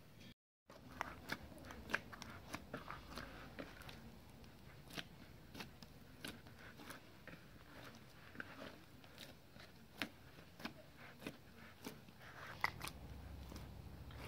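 Hands mixing and kneading lavash bread dough in a plastic bowl, giving irregular soft clicks, squishes and taps against the plastic.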